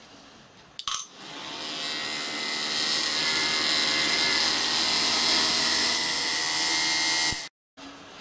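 Battery-powered electric blower fan on a miniature steam locomotive's chimney, used to draw the fire while raising steam. It switches on with a click, runs up to speed over a couple of seconds with a high whine, runs steadily, and cuts off suddenly near the end.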